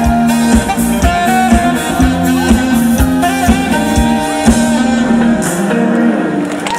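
Live band playing a dance-pop song, electric guitar over a drum kit with a steady kick about two beats a second; the drums drop out in the last second or so as the song closes.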